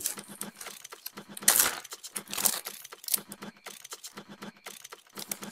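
Clear plastic zip-lock bag crinkling and crackling as it is handled, in a run of quick small clicks with louder rustles about a second and a half in and again about a second later.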